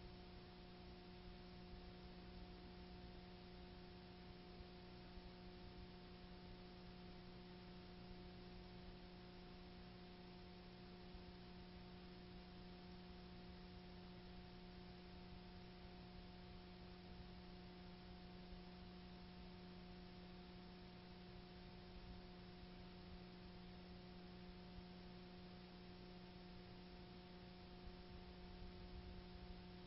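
Near silence: a faint, steady electrical hum with a few higher overtones over soft hiss.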